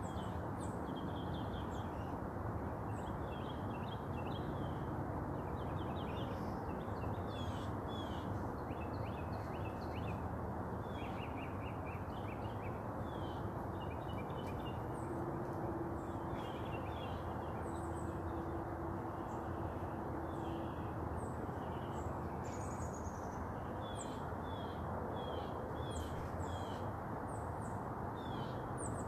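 Several birds chirping and calling, in many short notes, over a steady low background rumble.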